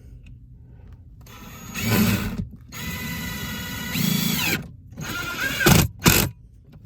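Power drill driving screws to mount an electrical junction box, running in about four short bursts, the longest about two seconds.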